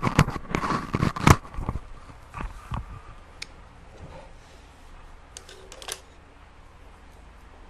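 Handling noise from a phone being held and moved: a quick run of clicks and knocks in the first two seconds, a few scattered taps after, and a short cluster of clicks about six seconds in, over low room tone.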